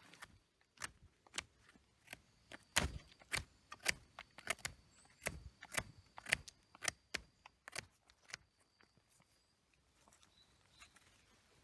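A run of sharp, irregular clicks and knocks, about twenty over eight seconds, tailing off near the end, over a faint steady high-pitched tone.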